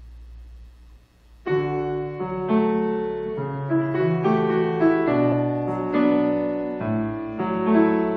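Yamaha grand piano starting about a second and a half in after a faint low hum, playing slow sustained chords as the introduction to a hymn anthem.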